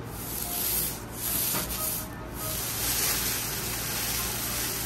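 Metal spatulas scraping across a steel teppanyaki griddle, a harsh hissing rasp in three long strokes with short breaks between them and one sharp click partway through.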